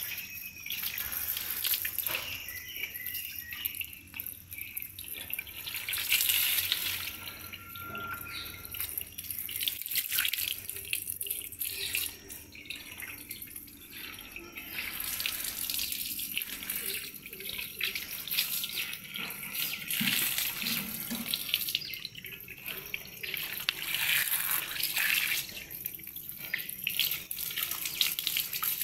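Jet of water from a hose spraying onto a brass elephant figurine and splashing onto the wet floor, a continuous hiss and splatter that swells and drops in loudness as the stream moves over the metal.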